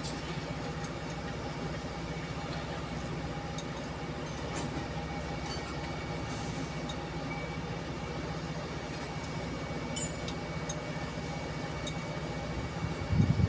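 Kobelco crawler crane's diesel engine running steadily at idle, with a few small metallic clinks. Near the end a short burst of louder low thumps.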